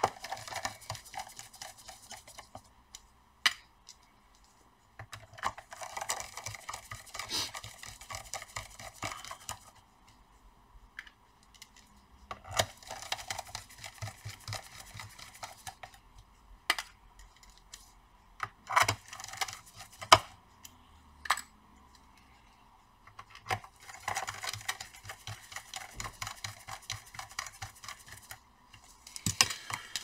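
Small screwdriver driving screws into a gaming laptop's plastic bottom cover: several runs of fine rapid ticking and scraping, with a few single sharp clicks between them.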